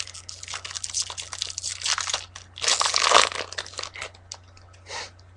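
Foil wrapper of a Yu-Gi-Oh booster pack crinkling as it is handled and torn open: dense crackling for about three seconds, loudest around three seconds in, then a few light clicks as it quietens.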